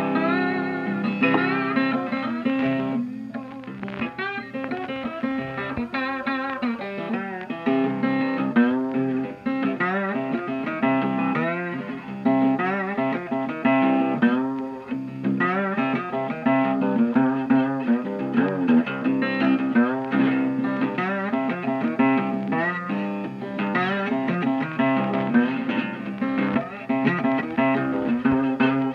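Blues guitar music: a guitar playing single-note lines with bent notes over a steady low accompaniment.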